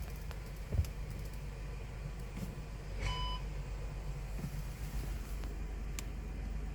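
Skoda Scala with a DSG gearbox, in reverse: a steady low drivetrain hum, with a single knock about a second in. A short electronic beep sounds about three seconds in.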